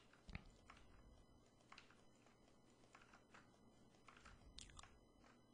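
Near silence with faint, scattered clicks of a computer mouse and keyboard, including a close pair of clicks near the end.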